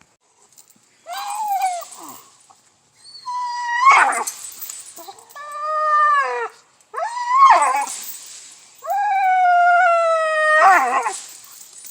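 Game-bred American pit bull terrier whining and howling in about six high, drawn-out cries, some bending in pitch, the longest held steady for about two seconds near the end.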